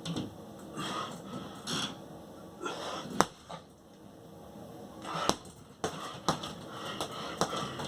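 Scattered sharp smacks and clicks at irregular intervals, with softer scuffing between them and two louder cracks about three and five seconds in.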